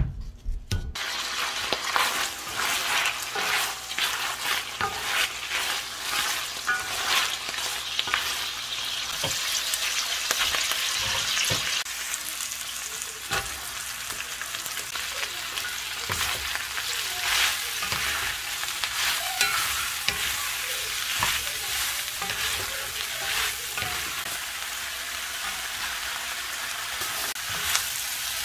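Food sizzling in oil in a hot frying pan while being stirred, with a utensil clicking against the pan now and then. The sizzle starts suddenly about a second in.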